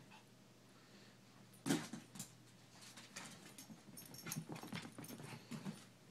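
Small dog playing, its paws scrabbling and landing on rug and wooden floor, with small vocal noises in between. A sharp knock sounds a little under two seconds in, and a busy run of short scuffles and noises follows from about four seconds.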